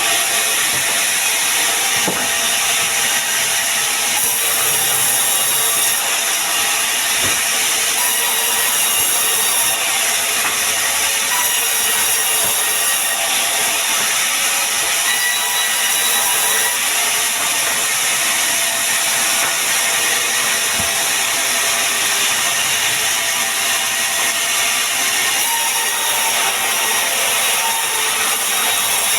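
Sawmill saw cutting a pine log: a loud, steady, high-pitched whine and hiss of the blade in the wood that does not let up.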